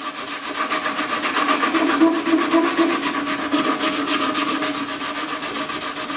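Power sander running steadily on wood, a steady hum under an even, fast-pulsing rasp.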